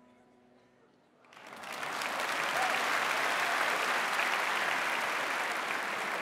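A large audience starts applauding about a second in, swelling quickly to loud, steady clapping.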